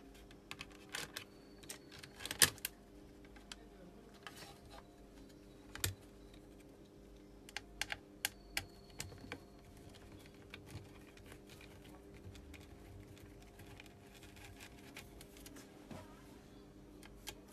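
Scattered sharp clicks and taps as the plastic housing and circuit board of a Mercedes W204 C-Class display unit are handled and worked with a small screwdriver. They come in clusters, the loudest about two and a half seconds in, and thin out in the second half over a steady low hum.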